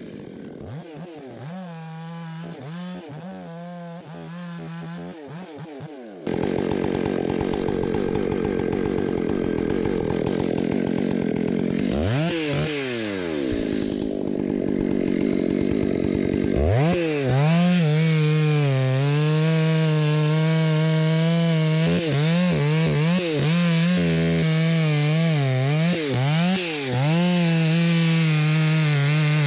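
Stihl MS 661 chainsaw, a large two-stroke professional saw. For the first six seconds it runs lightly with uneven throttle. Then it jumps to full throttle and cuts into fir wood, its revs dipping briefly and recovering as the chain bites.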